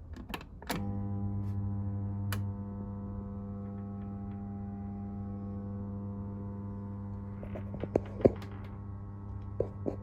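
Beko DCU 7230 condenser tumble dryer switched on with a few clicks, then its motor humming steadily while the drum stays still, the stalled-motor hum of a failed capacitor. A few more clicks come near the end.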